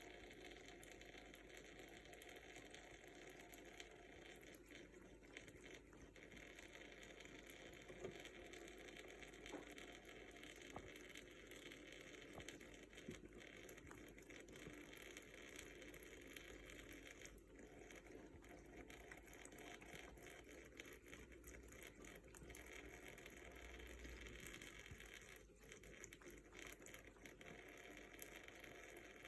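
Faint steady hiss of a running water tap, with a few light ticks and splashes here and there.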